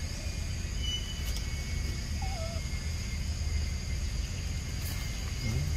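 Outdoor ambience: a steady high insect drone over a low, even rumble, with one faint short wavering squeak about two seconds in and a couple of faint clicks.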